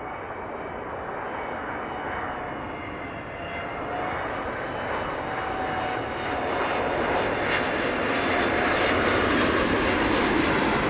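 Boeing 777 twin-engine jet on final approach with gear and flaps down: steady jet engine rush with a thin whine, growing steadily louder as it comes in low overhead.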